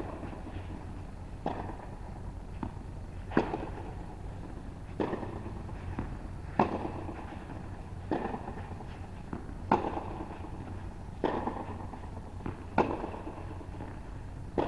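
Tennis balls struck by rackets in a steady groundstroke rally, a sharp pop about every second and a half, alternating louder and fainter as the two hitters trade shots.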